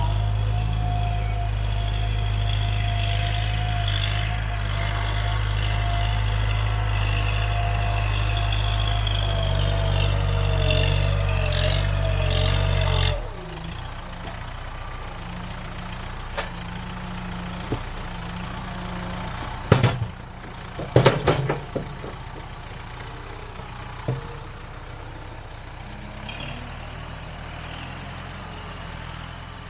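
Compact tractor with a front-end loader running loud and steady under throttle, then dropping suddenly to a quieter, lower run about halfway through. A few seconds later comes a quick cluster of loud knocks and clanks as the loader bucket tips its load of sand onto the track.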